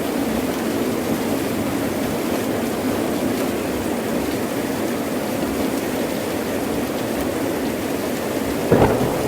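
Heavy rain falling steadily, with a short, sudden crack of thunder near the end.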